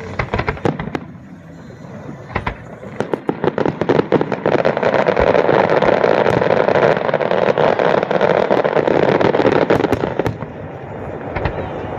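Aerial fireworks going off: a run of separate sharp bangs, then from about four seconds in a dense barrage of rapid reports that merge into a continuous loud din for around five seconds, easing to scattered pops near the end.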